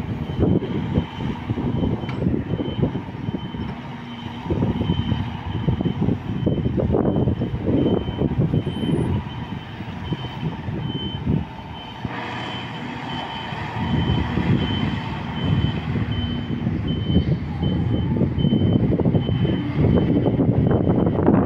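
Reversing alarm of an articulated dump truck backing up, beeping at an even rate over a low rumble of heavy diesel machinery.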